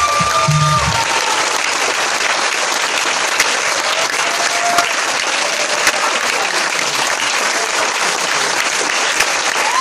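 Audience applauding, with the last notes of the music stopping about a second in and a few short shouts over the clapping.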